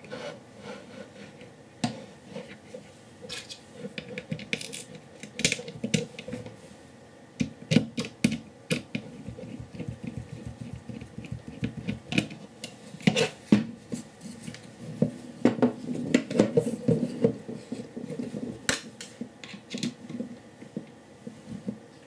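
Hands assembling a 3D-printed plastic microscope stage with metal screws and a screwdriver: irregular clicks, knocks and rubbing of plastic parts and fixings, busiest about two-thirds of the way through.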